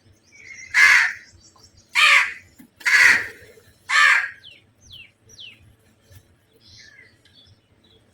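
Crow cawing four times, about one harsh caw a second. Fainter short, high, falling chirps from other birds follow in the second half.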